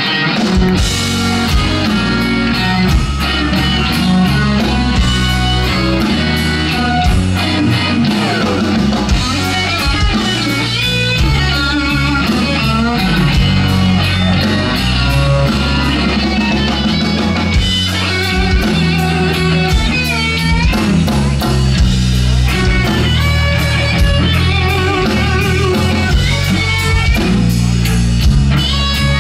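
Live blues-rock trio: electric guitar playing lead lines with string bends and wavering vibrato over bass guitar and drum kit.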